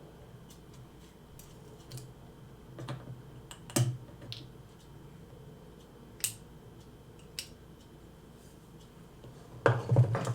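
Small irregular clicks and taps of watchmaker's tools and tiny metal watch parts being handled while a Seiko 6106 watch is taken apart, with a quick cluster of louder clicks near the end.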